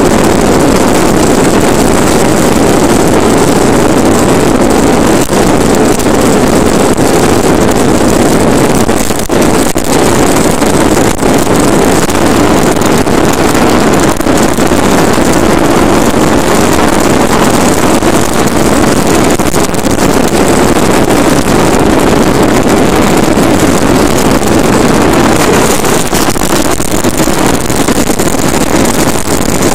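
Bobby-Car ride-on toy's wheels rolling fast down an asphalt road: loud, steady road noise, with wind on the microphone.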